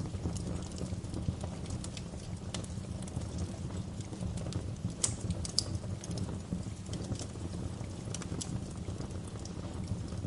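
Fire crackling in a fireplace: a steady low rumble of burning with frequent small crackles, and a couple of sharper pops about halfway through.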